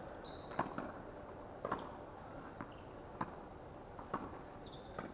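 Tennis balls being struck by rackets in a quick volley-to-volley rally: about five sharp pops, roughly one a second.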